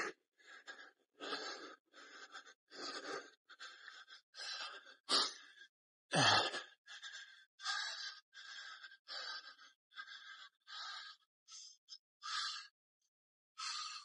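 A hiker breathing hard and quickly while walking, short breaths about two a second. A couple of louder thumps come about five and six seconds in.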